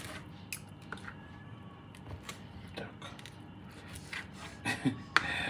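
Table knife and fork clicking and scraping on a plastic cutting board while cutting a salted fish fillet: scattered light taps. A brief voice sound near the end.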